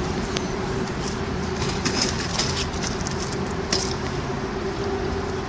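Steady background rumble of distant city traffic with a constant low hum, broken by a few brief light clicks and swishes.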